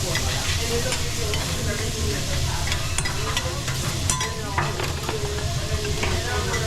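Food sizzling on a teppanyaki griddle, with a few sharp metal clicks from about halfway through and faint voices in the background.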